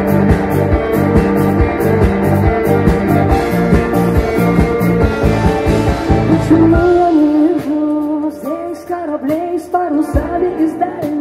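Rock band playing live, with a steady beat and guitar. About seven seconds in the drums and bass drop away, and a woman's voice sings a sliding melody over lighter guitar accompaniment.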